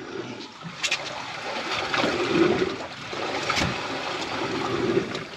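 Water lapping and sloshing against the hull of a drifting fishing boat, with a couple of light knocks.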